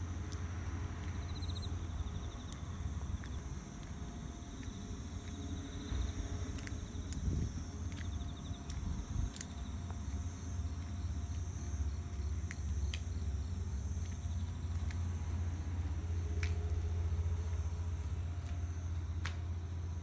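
Insects chirping and trilling in a steady chorus, with a steady low rumble underneath and a few sharp clicks.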